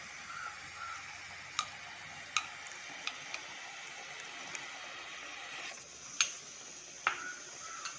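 Pan of ground-coconut curry paste cooking on a low flame, giving a faint steady sizzle while curd is poured in. Several sharp clicks and taps break through it, the loudest about six seconds in.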